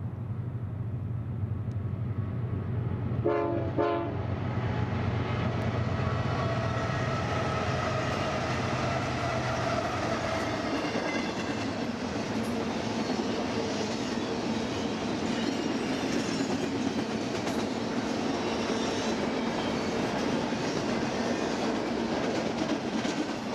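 BNSF double-stack intermodal freight train passing: the lead diesel locomotives drone low as they approach, with a short horn blast about three seconds in. Then the loaded stack cars roll by with a steady rumble and clatter of wheels on rail.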